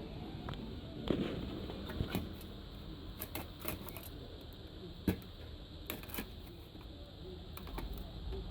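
Irregular light clicks and taps, a couple of dozen scattered unevenly, over a low steady background hum.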